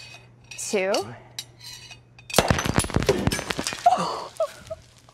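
Champagne sabering attempt: a blade strikes the neck of a champagne bottle about halfway through, setting off about a second of clattering, clinking clicks as champagne sprays out. The attempt fails; the bottle does not open the usual way.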